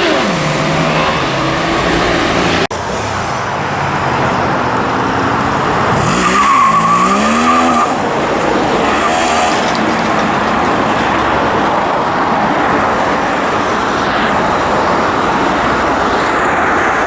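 Motorcycle engine revving up and falling back over a steady rush of noise, with a short steady squeal about halfway through. There is an abrupt edit about three seconds in.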